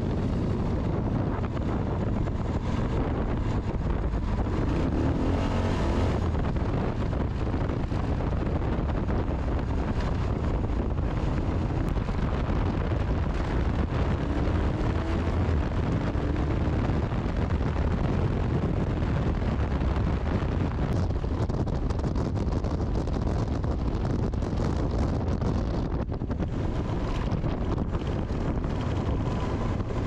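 Moto Guzzi Griso 1200 Sport's air-cooled V-twin engine running under way, with strong wind buffeting the microphone. The mix stays steady throughout.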